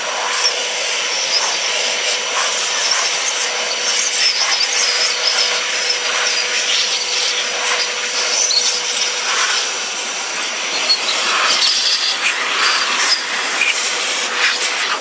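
Construction vacuum cleaner running in blower mode, a steady whine over a loud rush of air, used to blow bees off the frames of a honey super. Irregular knocks sound over it.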